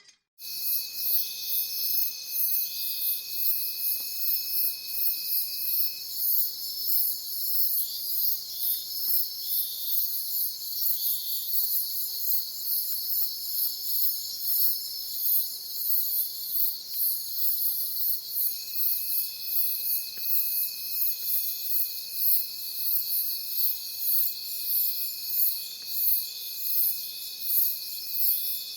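Night insect chorus of crickets and cicadas: a shrill, fast-pulsing trill on top of several layers of steady high chirring. A thin, steady high whine drops out for a long stretch in the middle and comes back in the later part.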